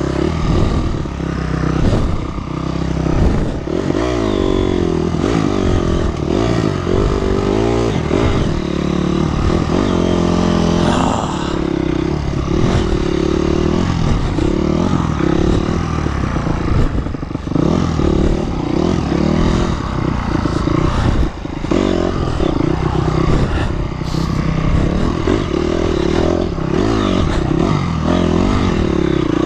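2004 Honda CRF250 dirt bike's single-cylinder four-stroke engine running hard, its pitch rising and falling again and again as the throttle is worked, with a few sharp knocks later on.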